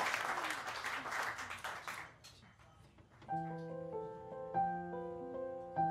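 An audience applauds, dying away about two seconds in. After a short quiet, a grand piano starts a song introduction with sustained chords that change every second or so.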